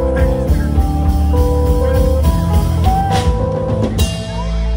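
Live band music amplified through PA speakers: guitar over a strong bass, with held melody notes changing pitch every second or so, and a bright crash about four seconds in.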